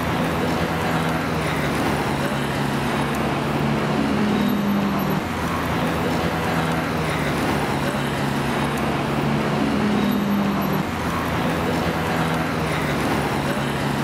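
City road traffic: a steady wash of passing cars and buses, under a low engine hum that changes pitch twice.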